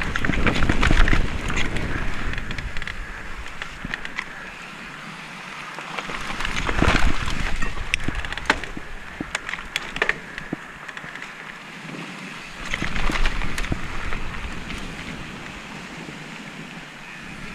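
Specialized Kenevo mountain bike descending a dirt trail: tyres rolling over dirt and roots with many sharp clicks and rattles from the bike, and wind buffeting the action camera's microphone, swelling louder three times.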